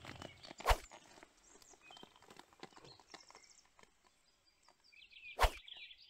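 Quiet outdoor ambience with two sharp knocks, one under a second in and one near the end, and small birds chirping faintly near the end.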